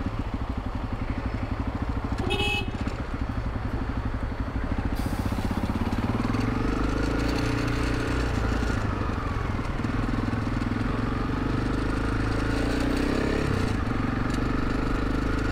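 Honda CRF300 Rally's freshly rebuilt single-cylinder engine running under way, its pitch rising and falling as it accelerates and eases off. A brief beep sounds about two seconds in.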